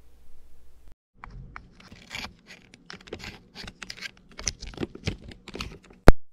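Handling noise of a camera being adjusted by hand: irregular scrapes, rustles and small clicks, ending with one sharp, loud click near the end.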